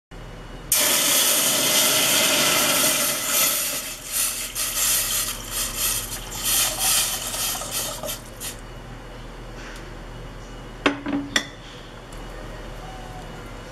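Water poured from a pitcher into a stainless steel pot: a steady splashing pour that turns uneven and tails off as the pour ends about eight seconds in. Two or three sharp knocks follow a few seconds later.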